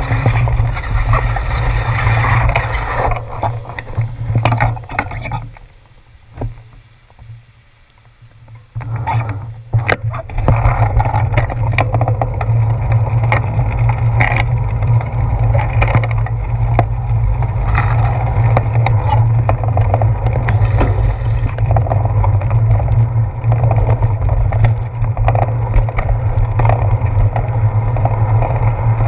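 Riding noise from a bicycle on wet pavement: wind rushing over a handlebar-mounted GoPro's microphone, with tyre and road rumble and frequent knocks from bumps. It falls away for about three seconds some six seconds in, then comes back at full strength.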